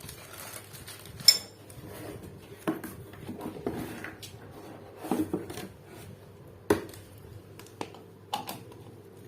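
Grinder accessories and parts handled by hand, with about eight separate metallic clinks and knocks; the grinder motor is not running.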